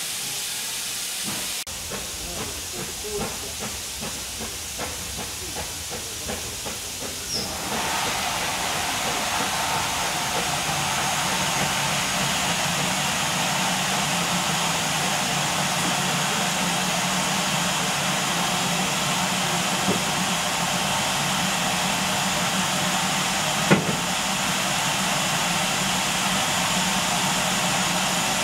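Steam locomotive: soft regular clicks at about two or three a second, then about seven seconds in a loud steady hiss of escaping steam starts and keeps on, with one sharp knock near the end.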